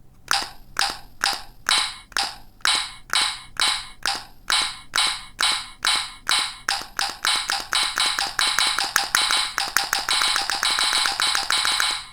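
Electronic sound effect from a small toy's speaker: a series of short clicking pulses, about two a second at first, that speed up steadily until they nearly run together near the end.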